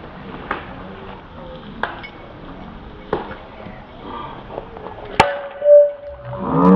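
A baseball bat strikes a pitched ball with one sharp crack about five seconds in, followed by a short ringing ping. A few fainter knocks come before it, and a louder, fuller sound starts just at the end.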